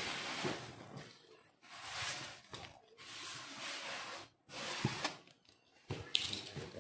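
Black plastic wrap around a cardboard parcel crinkling and rustling as hands handle it, in several bursts of about a second with short gaps between, with a soft knock about five seconds in.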